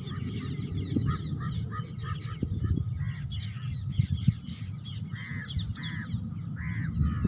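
A flock of parrots chirping and calling, many short chirps overlapping, with about four harsher repeated calls in the second half, over a steady low rumble.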